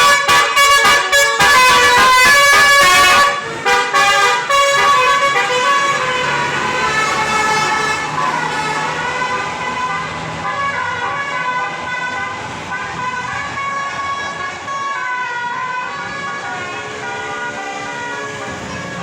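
A bus's basuri multi-trumpet musical air horn playing a melody of quick note changes, loudest over the first three seconds or so, then carrying on more softly with a slower run of tones.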